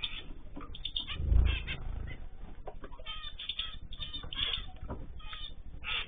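Zebra finches calling with many short, high chirps, with a brief flutter of wings about a second in and again at the very end as a bird takes off.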